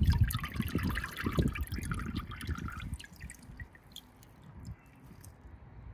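Pond water running and dripping off a handful of hornwort lifted out of a tub, with small splashes into the water below. The dripping is busiest in the first three seconds and then thins to a few fainter drops.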